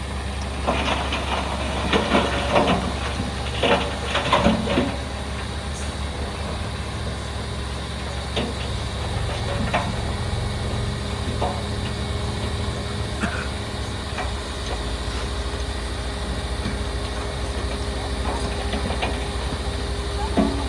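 Heavy diesel machinery running steadily, with a cluster of metallic clanks and knocks in the first few seconds and only an occasional one after.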